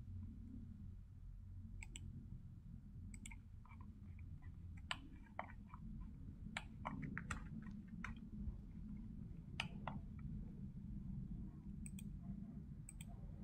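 Computer mouse clicking at irregular intervals, a dozen or more sharp clicks, over a faint low steady hum.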